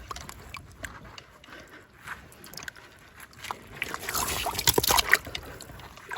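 Hands digging into wet tidal-flat mud and shallow seawater at an octopus burrow: water and mud are stirred with small clicks, louder between about three and a half and five seconds in.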